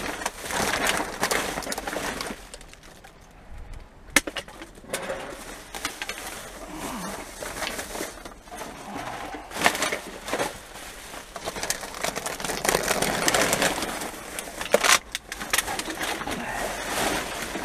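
Plastic garbage bags rustling and crinkling as rubbish in a dumpster is rummaged through by hand, with a few sharp clicks and knocks from items among the trash.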